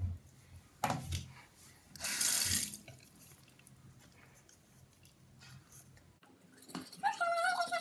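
Bathroom sink tap turned on briefly, water running for under a second about two seconds in, with a single knock shortly before.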